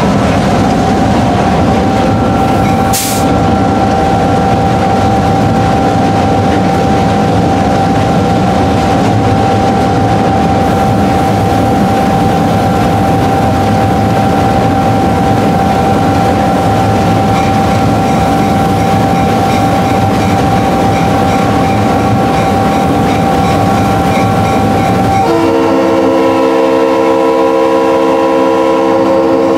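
GP38 diesel locomotive heard from inside its cab while under way: steady running noise with a constant high whine, and one sharp clank about three seconds in. In the last four seconds the locomotive's air horn sounds a long chord of several notes.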